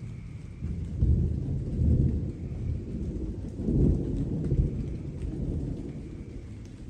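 Distant thunder rolling: a low rumble that builds within the first second, swells several times, and slowly fades toward the end, over light rain.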